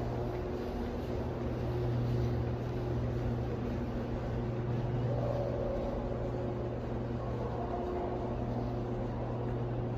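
Steady low mechanical hum and rumble filling an underground train station concourse, with faint wavering tones above it.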